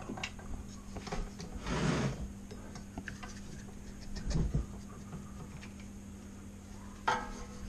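Hands working the belt and pulleys of a ZJ4110 drill press under its open belt cover: scattered clicks, knocks and rubbing of metal parts, with a sharper clack near the end, over a faint steady hum.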